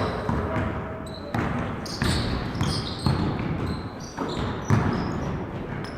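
Basketball bouncing on a gym's hardwood court, a thud about every second, unevenly spaced, with short high sneaker squeaks and a steady murmur of voices in the hall.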